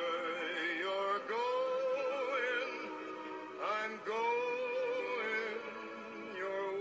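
Background music: a song in which a singing voice holds long, wavering notes, each phrase starting anew every second or two over steady accompaniment.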